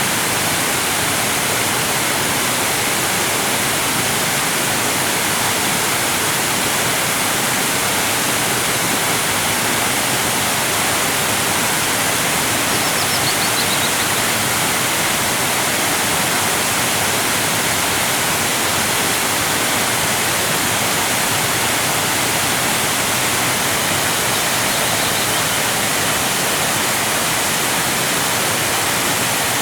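Waterfall: water cascading steadily, an even, unbroken rushing hiss heaviest in the high range.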